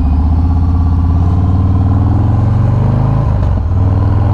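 2018 Harley-Davidson Sport Glide's Milwaukee-Eight V-twin, running through a Bassani 2-into-1 exhaust, pulling with rising revs under acceleration. About three seconds in there is a brief dip and drop in pitch as it shifts up a gear, then it pulls steadily again.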